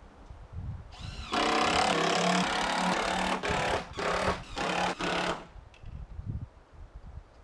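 Cordless impact driver or drill driving screws into wooden purlins. The motor spins up about a second in, then runs loud for about four seconds, broken by three short pauses, and stops.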